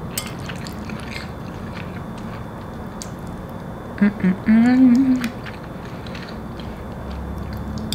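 A person chewing a mouthful of soft macaroni and cheese, with small wet mouth clicks, and a short closed-mouth "mmm" hum of enjoyment about four seconds in.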